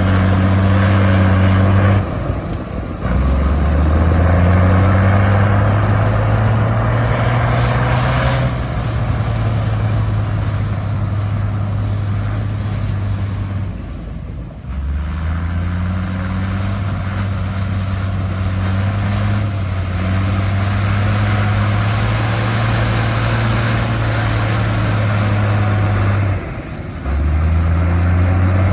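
Komatsu bulldozer's diesel engine running hard, loud and steady. It dips briefly three times, about two seconds in, near the middle and near the end, and each time climbs back up in pitch.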